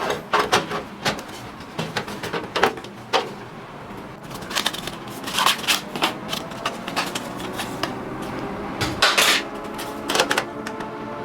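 Scattered clicks, knocks and light clatter of hard plastic and metal computer parts being handled and fitted, over faint background music.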